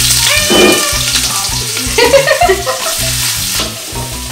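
Sliced onions sizzling in hot oil in a large aluminium pot. The sizzle is strongest at first and thins out about three and a half seconds in. Background music with a repeating bass line plays underneath.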